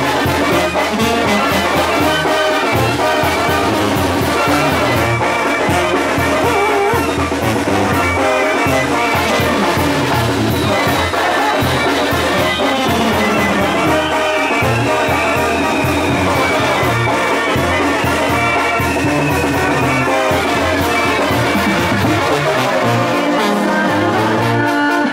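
Live brass band with trombones playing a tune over a regular bass beat.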